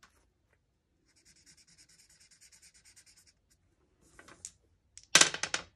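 Felt-tip marker scratching across paper in rapid back-and-forth strokes as numbers on a game sheet are coloured in. Near the end, a short loud clatter of two dice rolled onto the table.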